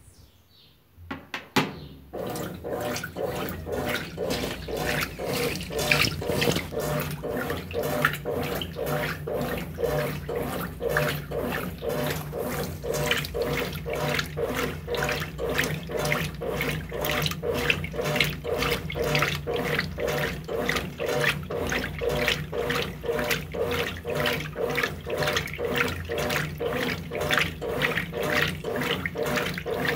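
Brastemp BWT12 top-loading washing machine in its wash cycle, churning clothes through the water: rhythmic swishing and sloshing in quick, even strokes over a steady motor hum, starting about two seconds in.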